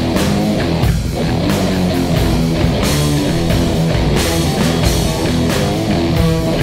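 Rock music with distorted electric guitar and a drum kit, laid over the footage as a soundtrack.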